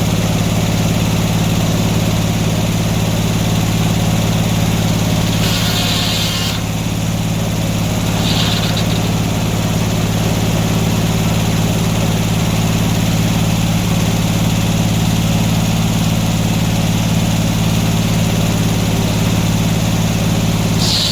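Sawmill engine running steadily at speed, with two short hissing bursts in the first half. The engine note drops away right at the end.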